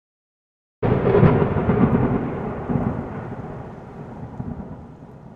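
A thunderclap: a sudden crack about a second in, followed by a long rumble that slowly fades away.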